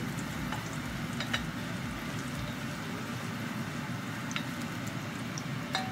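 Chopped garlic sizzling in hot oil in a nonstick saucepan, stirred with a wooden spoon, with a few light clicks of the spoon against the pan.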